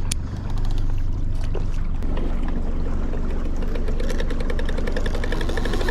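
Boat's main outboard motor running slowly and steadily, a low hum with water noise. From about two seconds in, a fast, even, rhythmic rattle joins it.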